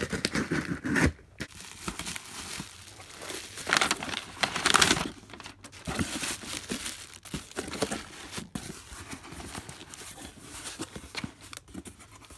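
Scissors slitting the packing tape on a cardboard shipping box, then cardboard flaps scraping and plastic air-pillow packing crinkling as the box is opened and the packing is pulled out. The loudest rustling comes about four to five seconds in.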